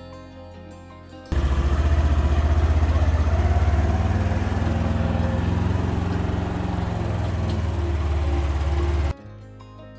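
Polaris Ranger UTV engine running as it tows a small utility trailer, with a steady low pulsing note. It starts abruptly just over a second in and cuts off abruptly near the end, with background music either side.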